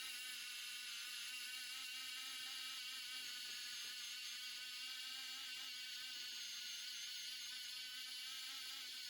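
A steady, high-pitched electrical whine with several held tones over a faint hiss, unchanging throughout.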